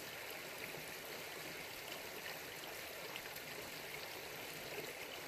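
A small creek flowing, a steady, even rush of water.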